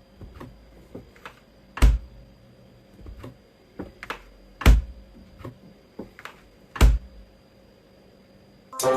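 Irregular knocks and taps in a small room: a dozen or so light taps with three loud thumps about two, five and seven seconds in. Music begins just before the end.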